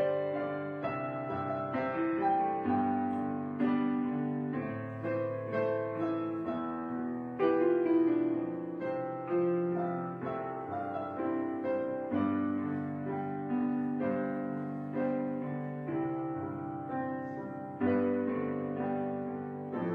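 Background piano music: a gentle instrumental piece of struck notes and chords, each fading away before the next.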